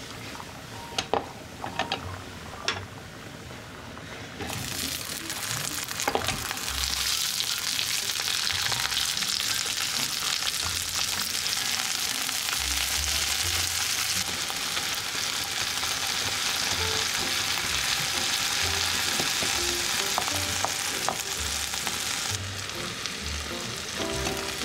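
Minced garlic sizzling in oil in a nonstick frying pan, with a few sharp clicks of a wooden spatula against the pan in the first seconds. About four seconds in the sizzle grows much louder as halved cherry tomatoes go in cut side down, then runs on as a steady, loud frying hiss.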